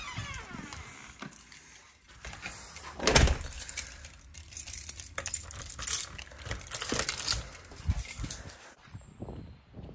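A front door is pulled shut with a knock about three seconds in, followed by keys jangling and clicking at the door's deadbolt lock for several seconds.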